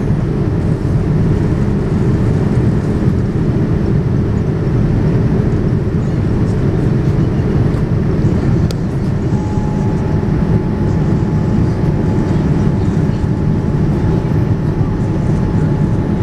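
Steady cabin noise inside a Boeing 787-9 airliner in flight: a deep, even rumble of its Rolls-Royce Trent 1000 engines and the airflow. A faint steady hum stops about eight seconds in, and a higher steady tone starts a second later.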